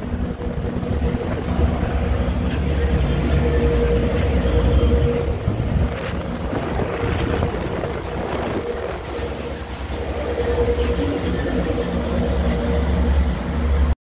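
Motor cruiser running at speed: a steady engine drone with a constant tone in it, water rushing along the hull, and wind buffeting the microphone. The sound cuts off abruptly at the very end.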